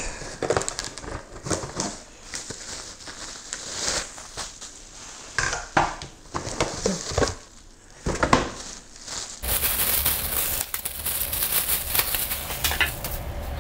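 Cardboard box and plastic packaging handled during unpacking: scattered rustles, scrapes and knocks, then about four seconds of steady crinkling of a plastic bag near the end.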